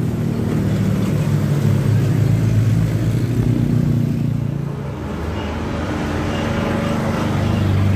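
Engines of open Willys-style tour jeeps driving past on a road, with a motorbike going by between them. The engine sound swells to its loudest about two to three seconds in, eases off around five seconds, then builds again as another jeep approaches near the end.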